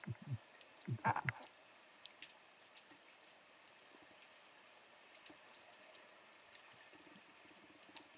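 Faint underwater crackle of scattered sharp clicks, with a cluster of dull knocks in the first second and a half.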